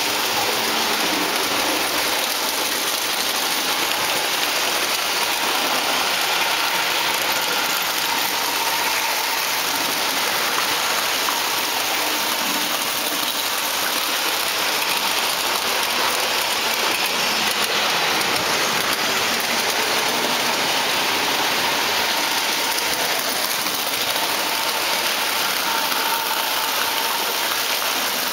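Lionel three-rail model trains running on the layout: a steady rushing noise of metal wheels on track and electric motors, with a faint steady whine, unbroken throughout.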